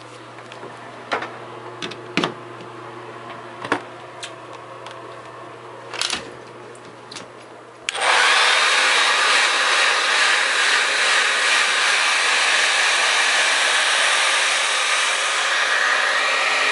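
A few scattered clicks and knocks over a low steady hum, then about eight seconds in a hair dryer switches on and runs loud and steady, blowing snow off a Siberian husky's coat.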